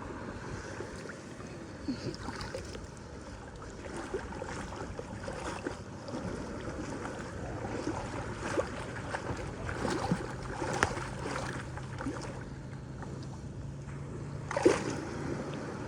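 Shallow water sloshing and splashing in short strokes while someone wades ankle-deep across a sandbar, with one louder splash near the end. A motorboat's low engine hum comes in about halfway through and holds steady.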